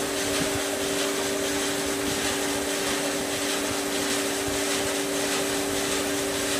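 Large block band sawmill running steadily without cutting: an even machine hum with two held tones and a broad hiss above it.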